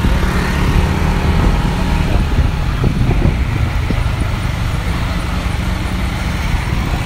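Motorcycle running steadily while being ridden along a street, its engine rumble mixed with road and traffic noise.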